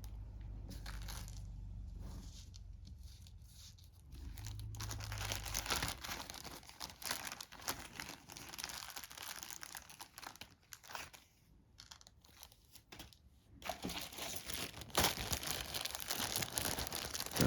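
Crinkly plastic packaging being handled and rustled while game pegs are unpacked, in irregular bursts, dipping quieter just before the last few seconds and then louder again.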